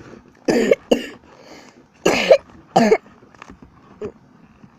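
A young girl coughing: four loud coughs in two quick pairs, with a faint one near the end.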